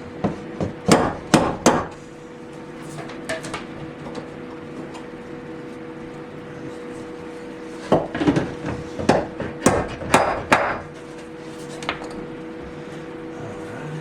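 Sharp hammer-like knocks on wood inside a sink base cabinet, in two quick runs: about five knocks in the first two seconds, then a faster run of about eight a little past the middle, with a few light taps between. This is the work of mounting an undermount sink with clips and wooden brackets.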